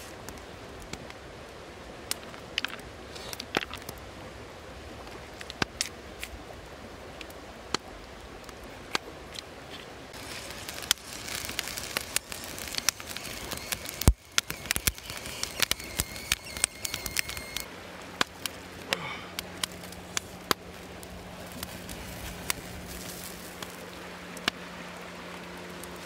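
Wood campfire crackling, with frequent sharp pops and one loud pop about halfway through, over a steady background rush of flowing water.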